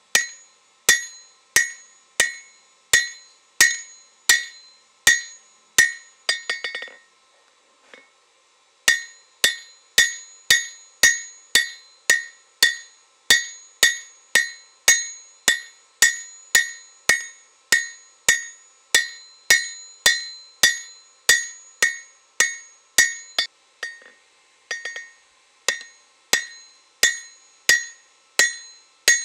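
Hand hammer striking a red-hot leaf-spring steel blade on an anvil in a steady rhythm of about two blows a second, each blow ringing brightly off the anvil. About six seconds in, a quick flurry of lighter taps comes before a short pause, and then the steady blows start again.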